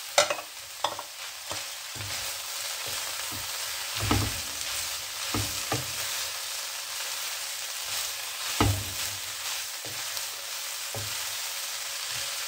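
Vegetables and shredded chicken sizzling steadily in a non-stick wok while a wooden spatula stir-fries them, with scattered sharp knocks of the spatula against the pan, loudest just after the start and about eight and a half seconds in.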